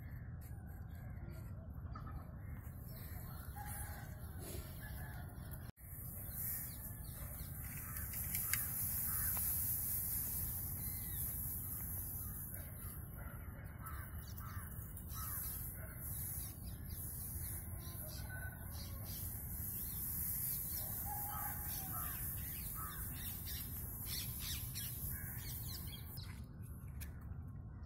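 Birds calling here and there over a steady low rumble and high hiss, with dry straw rustling and crackling as it is heaped by hand.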